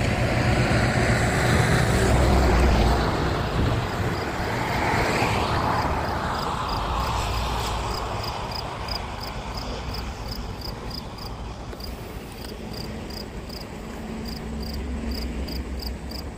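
A passing motor vehicle: a rumble that swells over the first few seconds with a rising-then-falling sweep of noise, then fades away. As it fades, an insect chirps steadily, about twice a second.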